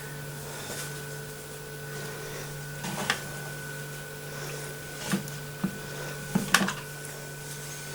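Steady low electrical hum, with a few light knocks and clicks of kitchen handling about three, five and six and a half seconds in.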